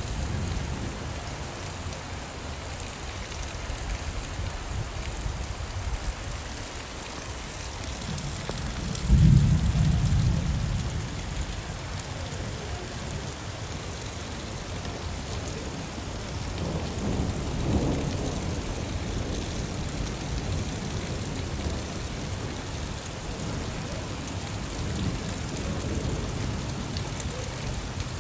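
Steady rain with thunder rumbling; a sudden, loud, deep roll of thunder about nine seconds in, and softer rumbles later.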